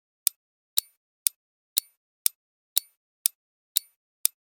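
Quiz countdown timer ticking like a clock, short sharp ticks about two a second, nine in all.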